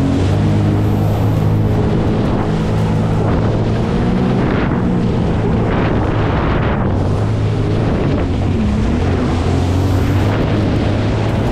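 Jet ski engine running at a steady pitch while riding at speed, with water spray hissing off the hull and wind buffeting the microphone. There are louder rushes of spray a few seconds in as it crosses waves.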